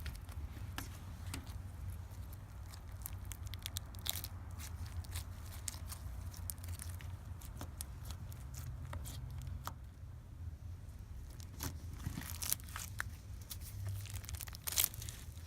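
Slime being squeezed and worked by hand, giving many small irregular crackles, clicks and pops over a low steady hum.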